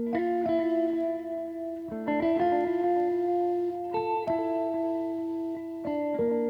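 Background music: a guitar playing sustained chords, the notes changing every second or two.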